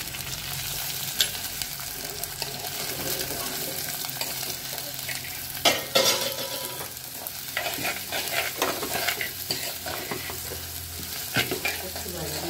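Sliced onions, green chillies and curry leaves sizzling in hot oil in a clay pot as they are sautéed, stirred with a steel spoon that scrapes and knocks against the pot now and then.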